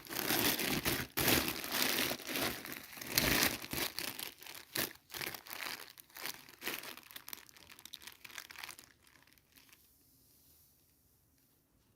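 Packaging being handled and crinkled in close-up, a dense run of irregular crackles that thins out and stops about three-quarters of the way through.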